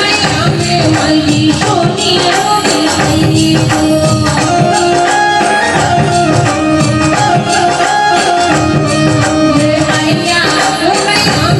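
Live Rajasthani devotional folk music, a bhajan: a pitched melody line over dense, steady hand percussion.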